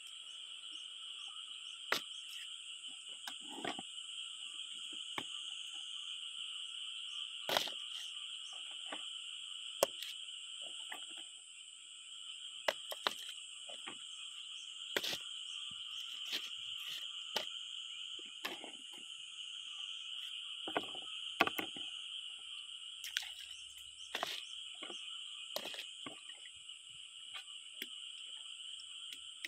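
A steady, high-pitched chorus of calling frogs and insects, with scattered sharp clacks of freshwater mussel shells knocking together as they are handled and moved into a basket.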